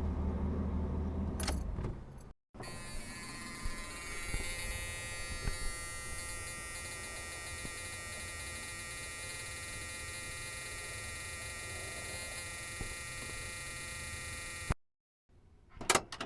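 A 1979 Mercury Zephyr's engine running for the first couple of seconds. After a short break comes a steady electric buzzing inside the car with keys jingling, which cuts off suddenly near the end, followed by a couple of short knocks.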